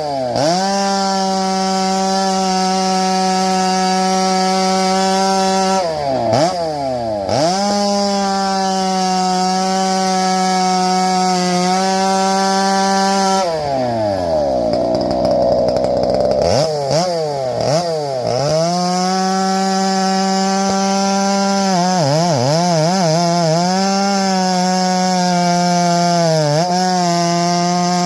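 Farmertec G395XP two-stroke chainsaw running at high revs, its engine pitch dropping and recovering several times and sagging deeply for about three seconds near the middle as the chain loads up in a cut.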